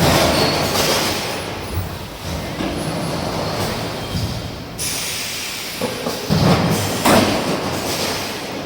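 Industrial production-line machinery running with a continuous rattling noise. Louder metallic clanks come at the start and again about six and seven seconds in.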